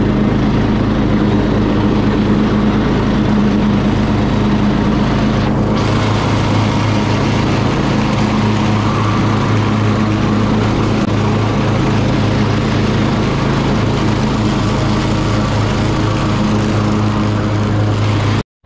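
Cub Cadet XT1 riding lawn mower running steadily at working speed: a constant engine drone with the noise of the cutting deck over it. It breaks off suddenly near the end.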